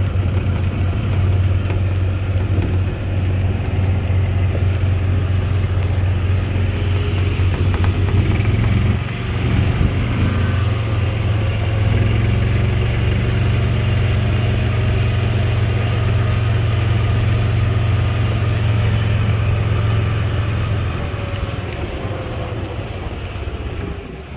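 A motor vehicle's engine running steadily with a low, even hum. It dips briefly about nine seconds in and eases off over the last few seconds.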